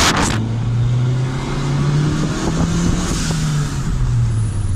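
Turbocharged Honda D16Y7 four-cylinder engine pulling under load, heard from inside the cabin. Its note steps up about halfway through and drops back near the end. A loud rush of air, typical of the turbo's blow-off valve venting, cuts off just after the start.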